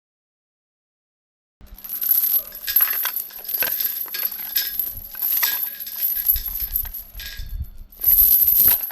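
Metal chain being moved, its links clinking and rattling against each other. It starts about a second and a half in and runs for several seconds, with a second, louder rattle near the end.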